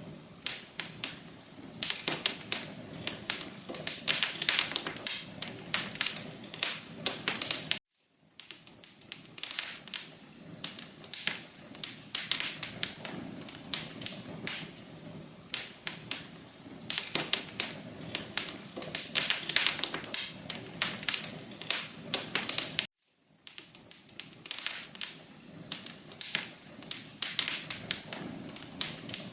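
Wood fire crackling in a fireplace: a steady low hiss with dense, irregular sharp pops and snaps. The sound cuts out completely for a moment twice, about 8 seconds in and again about 23 seconds in.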